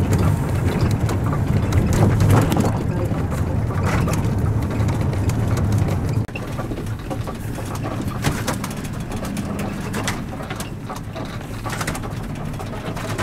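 Low rumble of a vehicle in motion, heard from inside. It cuts off about six seconds in and gives way to a quieter rumble with a few light knocks.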